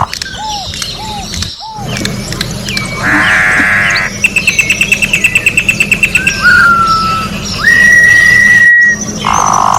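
Campo troupial (corrupião) singing a varied whistled song: three short arched notes, a harsh buzzy note, a fast trill of about ten notes a second, then falling notes and a long steady whistle near the end. A low steady hum runs underneath.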